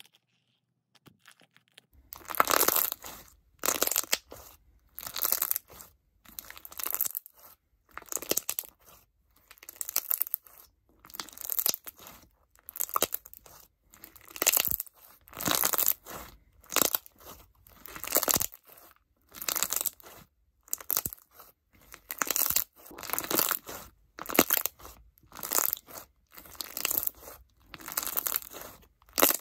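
Clear crunch slime, a clear base with crunchy block beads mixed in, pressed and squeezed by hand: each press gives a crunching crackle, repeated about once a second after a quiet first two seconds.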